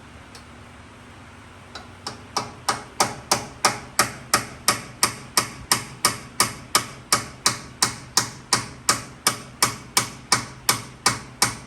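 Steady hammer blows, about three a second, starting about two seconds in, each ringing briefly: a hammer tapping the four-pin front spindle locknut on a 1988 Ford Bronco II's hub to turn it loose.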